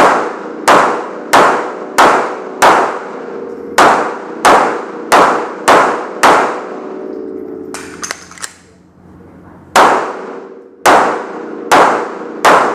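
Pistol fired in a rapid string of about ten shots, one every half-second or so. A pause of about three seconds follows, with a few faint clicks, then about five more quick shots.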